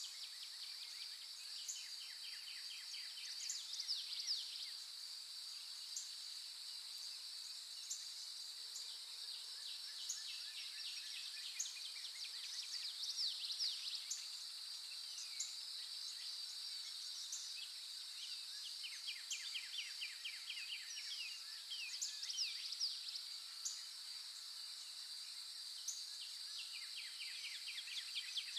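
Nature ambience: a steady high-pitched insect chorus drones throughout. Over it come repeated bursts of rapid chirping and short, sharp high calls every second or two.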